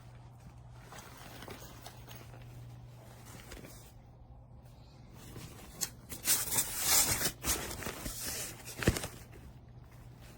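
Rustling and a few sharp clicks as a nylon tactical backpack is handled, loudest in a cluster from about six to nine seconds in, over a steady low hum.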